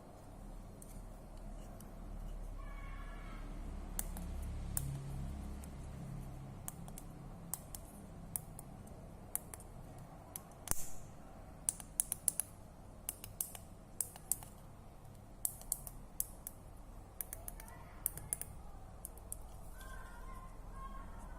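Scattered sharp clicks and taps, irregular and unevenly spaced, over a low steady background, with a faint high pitched call twice.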